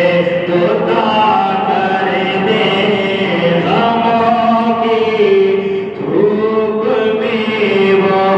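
Naat recitation: a voice chanting in long, held notes that slide from pitch to pitch, with no clear words.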